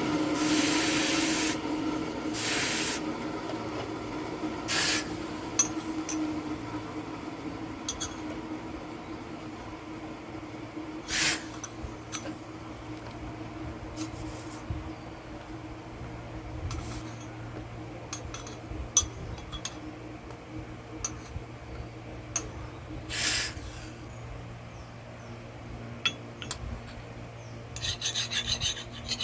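Rasping strokes of abrasive work on a steel axe head, scattered and irregular, with several quicker short strokes near the end, over a low steady hum.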